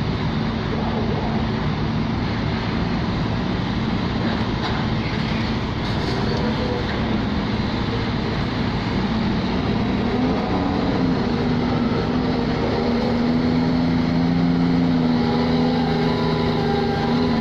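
Ship's engine running steadily, a constant low drone. From about two-thirds of the way in, a container truck's engine on the quay adds a second, rising hum and the sound grows a little louder.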